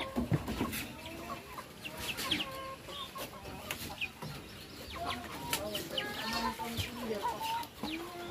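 Free-range native chickens clucking, many short calls from several birds overlapping.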